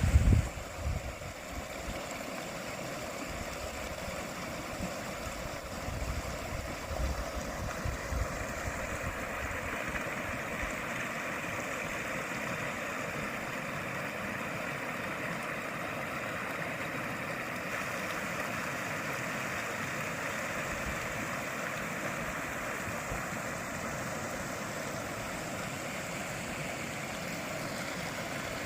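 Steady rushing of a mountain stream. A few low thumps come in the first several seconds, the loudest right at the start.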